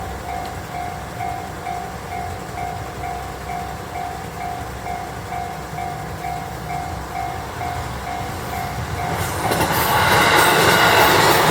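Japanese railroad crossing bell ringing its electronic ding about twice a second. About nine seconds in, an E353-series limited express train arrives and passes the crossing with a loud rush of wheel and rail noise that drowns the bell.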